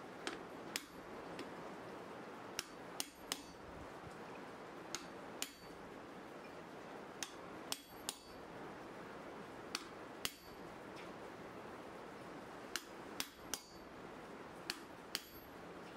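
Hand hammer striking a chisel held on a red-hot mild steel bar on the anvil, cutting decorative lines: short, ringing taps, irregularly spaced and often in quick twos and threes, over a steady hiss.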